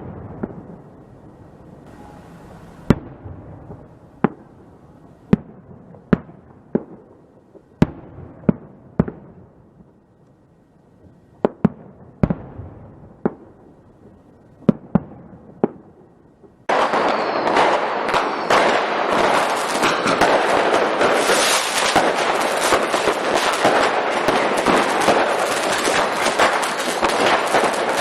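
Fireworks going off: separate sharp bangs, roughly one a second. About two-thirds of the way through it switches abruptly to a dense, continuous rapid crackling.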